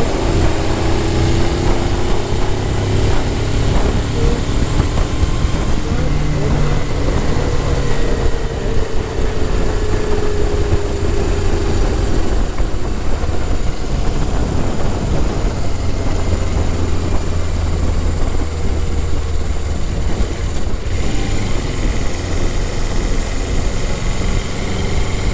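Motorcycle engine and wind rush at road speed, picked up by a lavalier microphone inside the rider's helmet. The engine note drifts slowly up and down under a steady, heavy rumble of wind and road noise.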